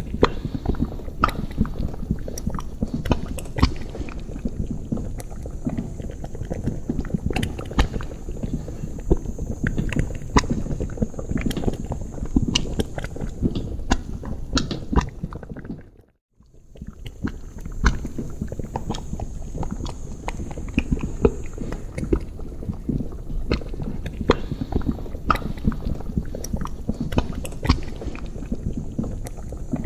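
Thick liquid bubbling in a cauldron: a steady low burble with many small pops. About halfway through it fades to a brief silence, then picks up again.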